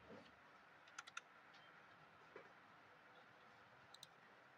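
Near silence broken by a few faint laptop keyboard clicks: a quick group of three about a second in, then single clicks later, as a size value is typed in.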